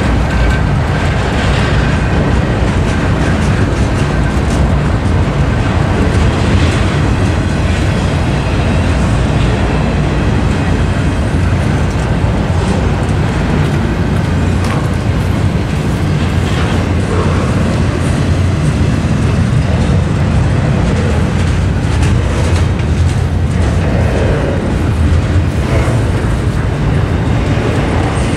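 Double-stack intermodal freight train's container well cars rolling past: a loud, steady rumble of steel wheels on the rails, with occasional clacks.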